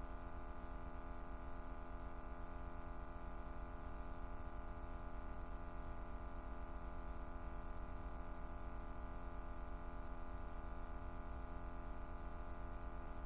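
Faint, steady buzzing hum that does not change.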